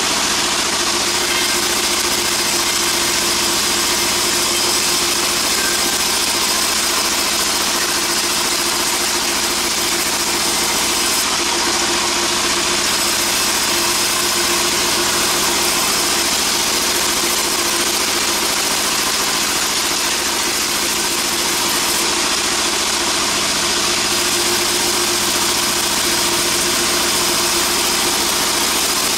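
Sawmill band saw machinery running steadily: a constant engine-like drone with a thin high whine over it, unchanging throughout.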